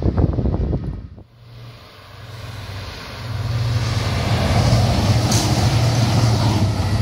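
Wind buffeting the microphone cuts off about a second in. Then an agilis electric multiple unit approaches and passes close by: the rumble of its wheels on the rails swells to its loudest near the end, over a steady low hum.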